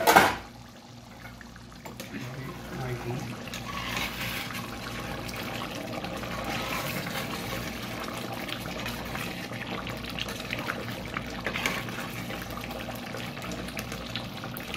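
Water poured in a stream into a large steel pot of simmering chicken curry, with a ladle stirring through the chicken pieces. A brief loud knock comes right at the start.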